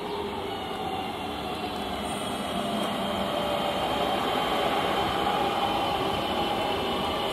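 Class 323 electric multiple unit running past alongside the platform. Its traction motors give a whine of several steady tones over the rumble of wheels on rail, growing louder as the coaches come alongside.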